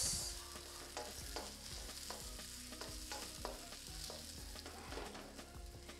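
Onions and carrots frying in oil in a pan, sizzling faintly, with scattered light clicks of stirring.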